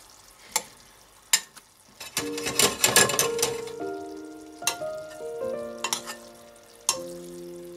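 Suzette sauce bubbling in a small stainless-steel saucepan while a metal spoon bastes, clinking sharply against the pan several times. Soft background music comes in about two seconds in.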